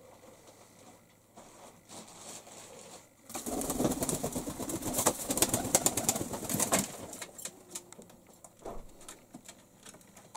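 Young white pigeon's wings flapping as it takes off and flies across a room: a dense run of rapid wingbeats starting about three seconds in and lasting about four seconds.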